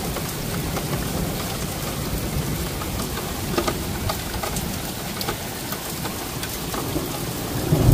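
Heavy rain falling steadily, with scattered ticks of drops striking nearby surfaces. Near the end a low rumble of thunder starts to swell.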